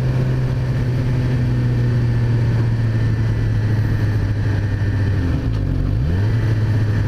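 Sport motorcycle's inline-four engine, a Suzuki GSX-R 600, running steadily at cruising speed under a haze of wind and road noise. About five and a half seconds in, the engine note dips briefly and climbs back, as when the throttle is eased and reapplied or a gear is changed.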